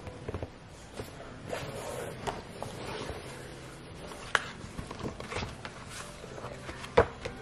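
Close handling of glossy paper cards, with soft rustles and scattered light taps, and two sharp clicks, one about four seconds in and the loudest near the end.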